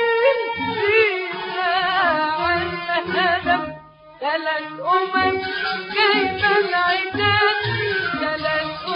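Arabic classical song from an old 1956 recording: a woman sings long, ornamented, wavering phrases over an Arabic orchestra, with a brief pause about four seconds in.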